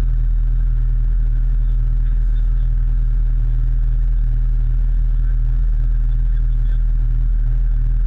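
Motorcycle engine idling steadily, a constant low hum picked up close to the bike.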